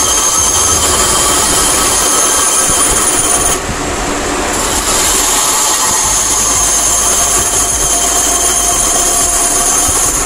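Small benchtop band saw running with a steady high whine as its blade cuts slowly through a small turned wooden chess piece. The highest part of the whine drops away for about a second partway through, then comes back.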